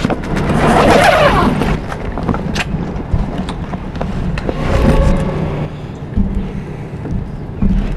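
Tennis kit bag being rummaged through by hand: rustling and scattered knocks of its contents, in two longer rustles near the start and around the middle, over a steady low hum.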